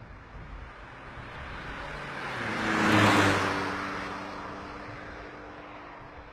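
A car passing close by and driving off down the road: tyre and engine noise swells to a peak about halfway through, then fades away.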